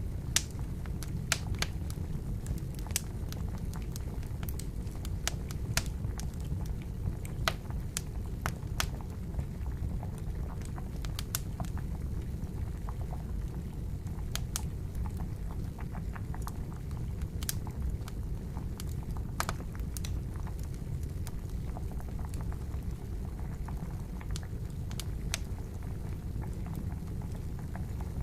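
Wood fire crackling with irregular sharp pops over a steady low bubbling rumble of water at a rolling boil.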